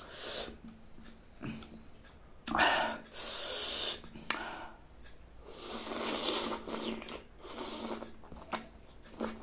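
Mouth sounds of eating ripe mango slices: wet slurping and sucking with breaths, in several short bursts with quiet gaps between.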